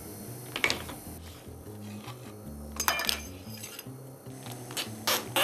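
Music playing from a small portable record player, with sharp clicks and clatter from a 7-inch vinyl single being handled on the platter about half a second in, around three seconds in and several near the end.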